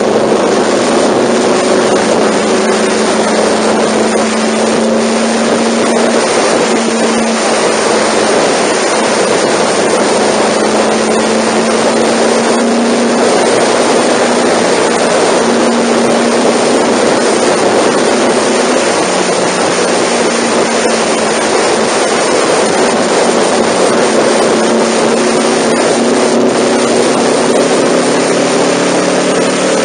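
Honda NC700 motorcycle's parallel-twin engine running steadily at expressway cruising speed, its note buried under loud wind rush and road noise.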